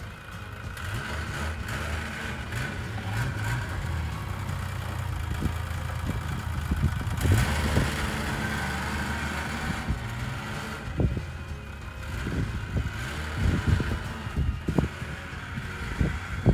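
Engine of a small off-road vehicle running as it comes along a trail through deep snow. It grows louder to a peak about seven to eight seconds in, then gives several short sharp bursts near the end.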